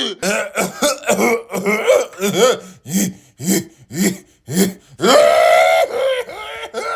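A man's over-the-top hacking coughing fit after a vape hit: rapid rasping coughs about two a second, a long strained wheezing cry about five seconds in, then more coughs near the end.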